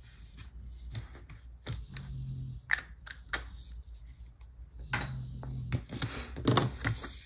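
Scattered light clicks and taps with paper handling as a paper sticker is glued down on a planner page.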